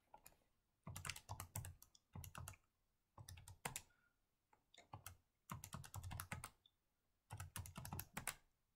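Faint typing on a computer keyboard: several short runs of keystrokes with pauses between them.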